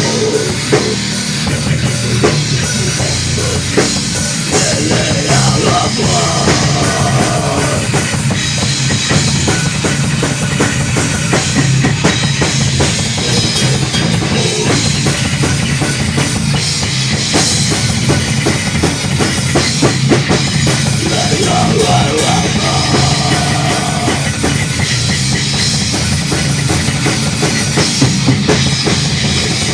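A live rock band playing an instrumental passage with no singing, the drum kit prominent.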